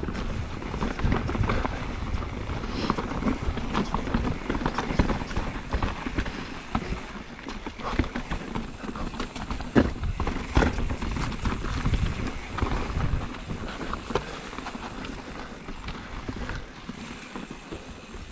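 Mountain bike rattling and clattering over a rocky trail descent. Irregular knocks and clunks run over a constant low rumble, with two sharp hits about ten seconds in.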